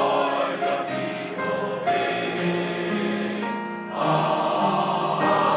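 Male voice choir singing held chords in parts, moving to a new chord about two seconds in and again about four seconds in.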